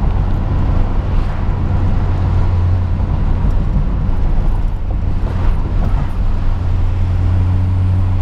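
2008 Honda Civic Si's 2.0-litre K20 four-cylinder, fitted with TSX camshafts, a catless header and an aftermarket exhaust, droning at a steady light-throttle cruise with road noise, heard from inside the cabin.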